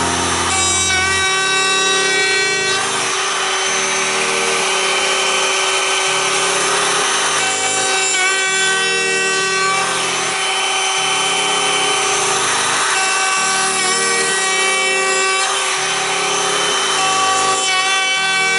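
A handheld trim router runs at full speed with a steady high whine, its bit chamfering the edge of a round wooden disc, the cutting hiss swelling and easing as the disc is worked round in short passes.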